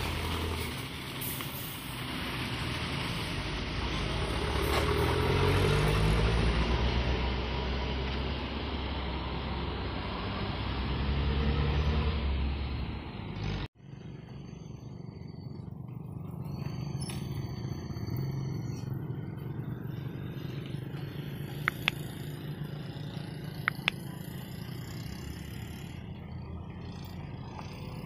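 A large intercity diesel coach drives close past, its engine loud and low. Then, after a sudden cut about 14 s in, quieter road traffic: motorcycles and a bus approaching on a rough road.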